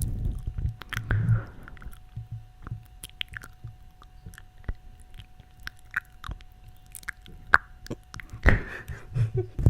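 Close-up mouth sounds into a sensitive microphone: scattered wet clicks and smacks, with a few soft low thumps about a second in and again near the end.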